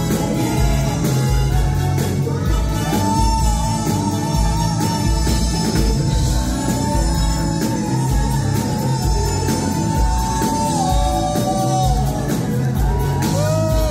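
Live band music with a steady beat and a singer holding one long high note for several seconds, then sliding through shorter notes near the end, with the audience clapping along.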